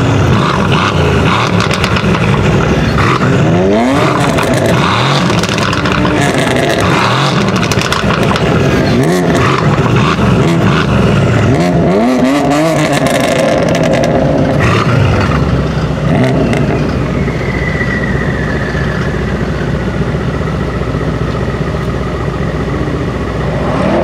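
Brabus 800 Mercedes-AMG C63 S's 4.0-litre twin-turbo V8 revved hard through its exhaust while stationary, with several sharp rises in pitch in the first half. In the second half it settles to a loud, steady idle.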